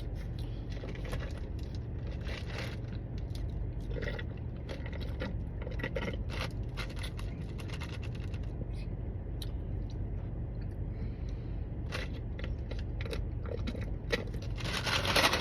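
Close-up chewing and biting into a crispy chicken sandwich: scattered short crunches and clicks over a steady low hum, with a louder rustling burst near the end.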